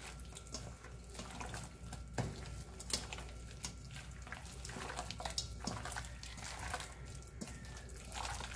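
Wet squelching of hands mixing floured chicken breast pieces through beaten egg in a stainless steel bowl: irregular soft squishes and light clicks.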